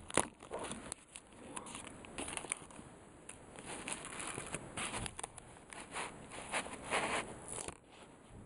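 Small clear plastic glitter bags crinkling and rustling as they are handled, in short irregular crackles that die away near the end.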